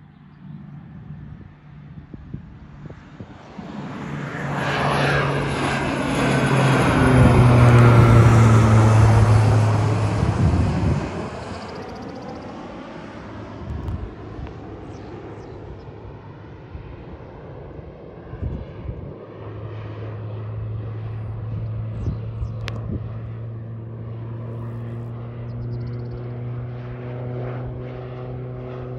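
Crop-dusting airplane's engine and propeller flying low overhead: the drone swells to a loud peak about eight seconds in, with a sweeping whoosh as it passes over. It then falls away and settles into a steady drone as the plane climbs off.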